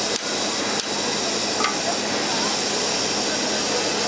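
Steady hiss of steam from a metre-gauge steam locomotive, with two sharp metal knocks at the coupling in the first second.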